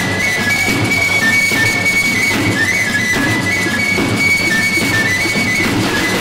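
Peruvian folk music played live by a band: a high flute melody moving in steps over steady drumming on hand drums and congas, with guitar.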